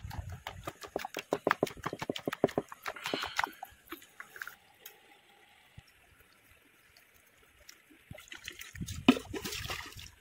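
A hand squelching and slapping through thick gram-flour (besan) batter in a steel bowl: a fast run of wet clicks for about the first three seconds. It then goes quiet, and near the end there is a short rush of water trickling in a shallow stream.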